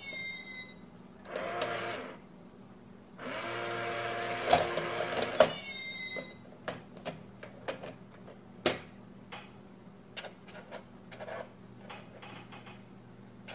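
Small battery motor of a cat-shaped coin bank whirring twice, the second run longer and ending in sharp clicks, as its lid mechanism works the coin into the box. Light clicks and taps follow, with one sharp knock, as the cat paws at the box.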